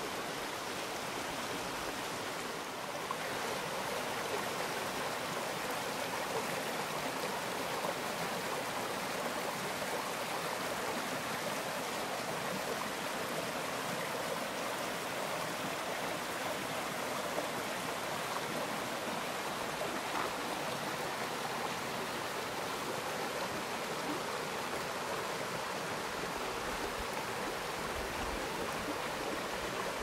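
Steady rush of a small two-tier waterfall, about 7 m high, pouring into its pool: an even, unbroken sound of falling water.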